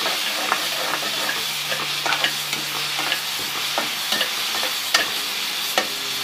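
Chopped onion and garlic paste sizzling in a pan, sautéed in a little cooking fat just to soften, not brown. A spoon stirring in the pan gives scattered sharp clicks and scrapes over the steady sizzle.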